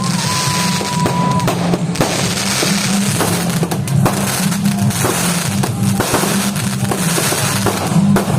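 Fireworks going off in rapid cracks and pops over loud music with a heavy bass beat, with a high steady whistle for about the first second and a half.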